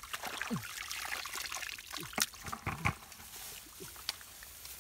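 Hands scooping and working thick wet mud in a perforated plastic basket: irregular squelches, slaps and small splashes, with watery trickling as the slurry drains.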